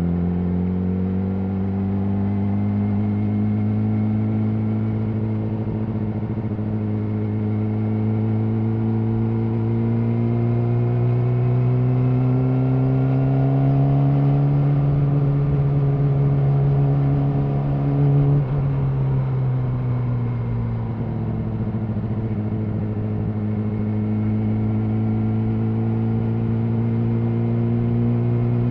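Yamaha R6 inline-four engine running through an Akrapovic slip-on exhaust while riding. Its pitch climbs slowly for about eighteen seconds as the bike gathers speed, falls over a couple of seconds, then holds fairly steady.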